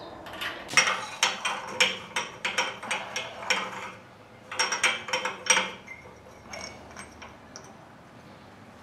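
Steel wrench and exhaust flange nuts clinking against each other and the pipe as they are handled at the exhaust port: a quick, irregular run of sharp metal clicks for about six seconds, then a few scattered clicks.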